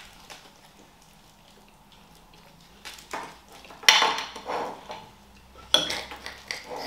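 Metal utensils clinking and scraping against a glass bowl and a china plate: a few sharp clinks after a quiet start, the loudest about four seconds in and another near six seconds.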